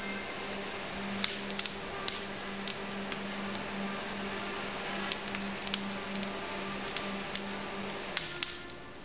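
Wood fire in a fireplace crackling, with irregular sharp pops and snaps over a steady hiss. A steady low hum underneath slides down and stops near the end.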